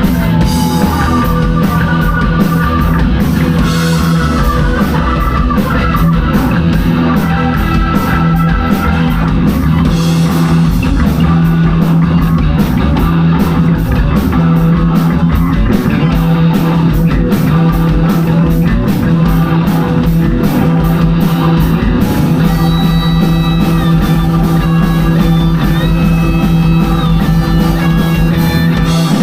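Live rock band playing an instrumental stretch: electric guitar over bass guitar and drum kit, with no singing.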